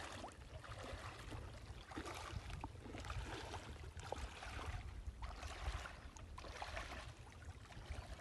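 Shallow lake water gently lapping and splashing around a person wading, under a steady low rumble of wind on the microphone.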